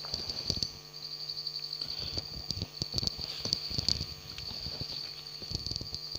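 Irregular clicks and light knocks of small objects being handled and moved about, over a steady high-pitched whine and a low electrical hum.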